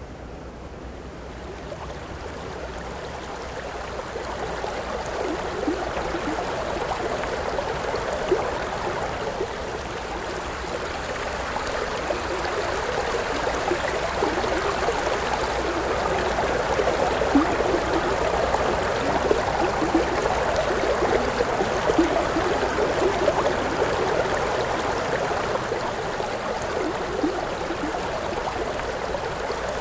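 A fast, shallow river rushing over stones, a steady wash of flowing water that swells up over the first few seconds and then holds.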